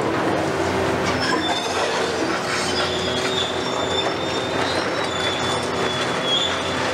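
Hitachi demolition excavators tearing down a brick building: engines running under load, with a high-pitched metal screech through the middle part and the crackle and clatter of breaking, falling masonry.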